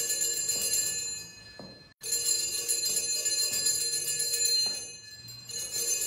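Sanctus bells shaken in peals at the elevation of the consecrated host. One peal dies away about a second in, a second rings from about two seconds in, and a third starts near the end.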